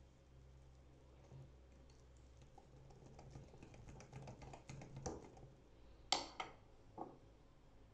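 Faint rapid clicking of kitchen utensils for a few seconds, then three sharp knocks near the end, the first the loudest.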